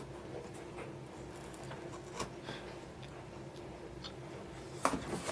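Quiet room tone with a steady low hum and a few faint clicks, one about two seconds in and a couple near the end.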